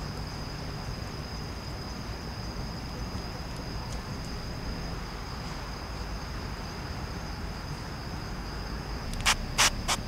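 Crickets chirring steadily in a high, even tone over a low background rumble. Near the end comes a quick run of about four sharp clicks.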